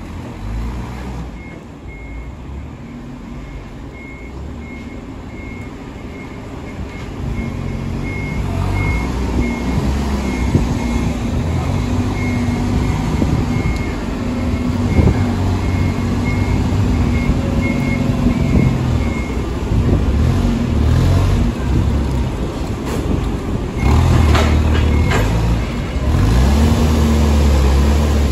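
A vehicle back-up alarm beeping steadily for most of the first twenty seconds, over the low running of diesel engines. The engine rumble grows louder in the second half, with a brief clatter of knocks near the end.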